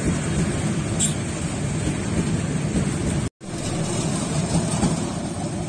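PT INKA passenger coaches of a Bangladesh Railway intercity train rolling past close by: a steady rumble of wheels on rail, with a brief high-pitched sound about a second in. The sound cuts out for an instant just after the halfway point, then the passing rumble resumes.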